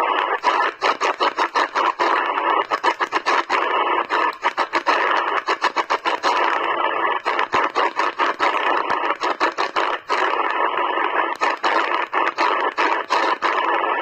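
Sihuadon D-808 shortwave receiver in upper-sideband mode giving a steady band-noise hiss as it is tuned up through the 15-metre band, with the sound cutting out briefly in quick runs as the dial is stepped.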